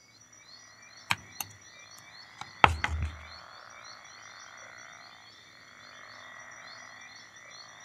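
Night-time nature ambience of frogs croaking in a steady chorus, with a few sharp clicks and a short low thump about three seconds in.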